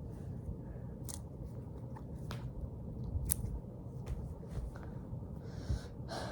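Hands squeezing and handling a Nee-Doh stress ball, soft squishing and rustling with scattered small clicks and crackles.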